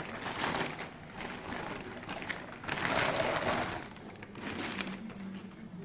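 Packaging rustling and crinkling as mixer-grinder jars and parts are lifted out of the box, with louder rustles near the start and again about three seconds in.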